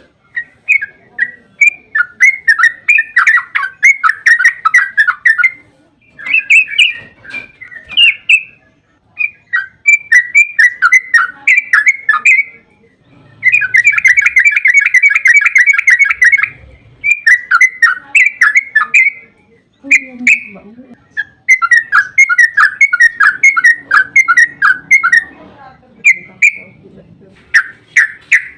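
Yellow-vented bulbul (trucukan) singing in bubbling phrases of quick notes, broken by short pauses, with one long unbroken rapid run of about three seconds midway.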